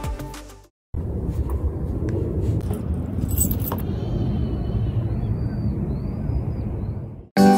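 Outdoor ambience: a steady low rumble of distant road traffic. A few faint, high rising-and-falling chirps come in the second half.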